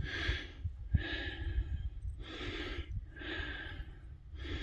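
A person breathing hard in steady, deep breaths, about one a second, with a low rumble underneath.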